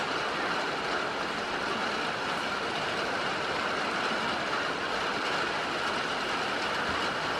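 Steady rain falling, an even hiss at a constant level.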